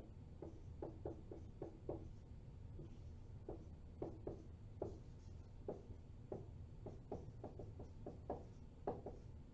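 Faint writing sounds: a pen tip making short, irregular ticks and strokes, a few a second, as a structure is drawn. A low steady hum runs underneath.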